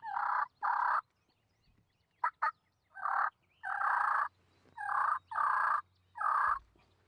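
Wild turkey gobbling: a string of about seven short, harsh calls with brief gaps between them.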